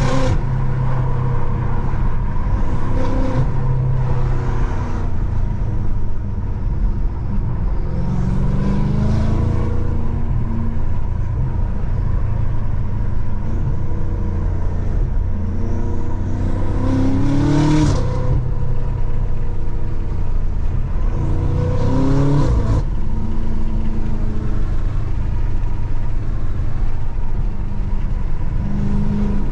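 BMW M5 F90's stage 2 tuned 4.4-litre twin-turbo V8 under way, a steady drone broken about four times by hard accelerations in which the engine note climbs quickly and then cuts off sharply. No pops or bangs from the exhaust.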